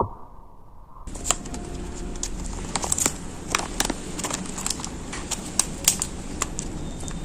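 Knife cutting through kinetic sand: a gritty scraping with many irregular sharp clicks, starting about a second in after a muffled, duller first second.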